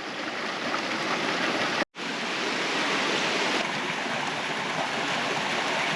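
Steady rush of water cascading over rocks from a waterfall and creek, with a momentary drop-out about two seconds in.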